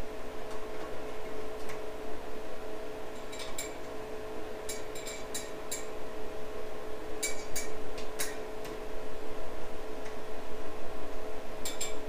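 Light metallic clinks and taps of small steel latch parts being handled and set down on a sheet-steel seat tray, coming in a few short clusters. A steady hum runs underneath.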